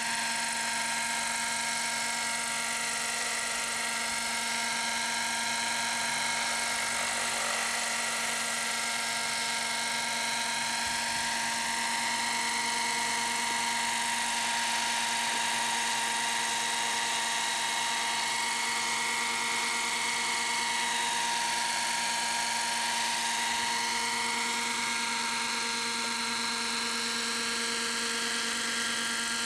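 Kyosho Caliber 30 RC helicopter hovering, its small nitro glow engine and rotors running at a steady high-pitched whine. The pitch swings slightly now and then as it holds the hover.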